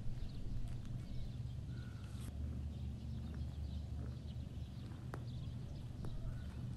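Mother cat licking and grooming her newborn kitten: soft rhythmic licking with small clicks and rustles, over a steady low hum.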